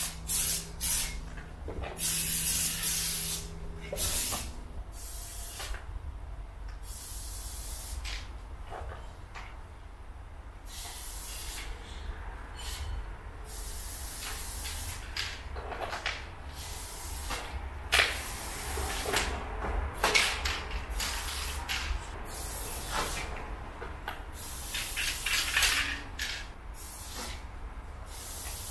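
Aerosol spray paint can hissing in many separate bursts, most of them short, with a few longer passes of a second or two.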